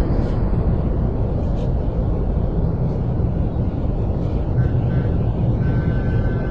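Steady low rumble of city ambience, like distant traffic. A faint, thin, steady high tone joins about two-thirds of the way through.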